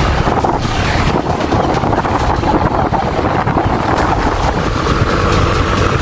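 Steady rushing wind noise on the microphone of a camera moving along a road at riding speed, heavy in the low end.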